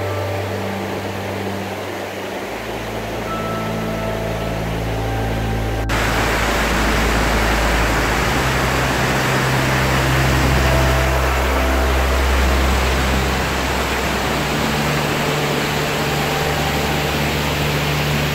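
Water rushing over the weir on the Vltava, a steady hiss that becomes much louder after a cut about six seconds in.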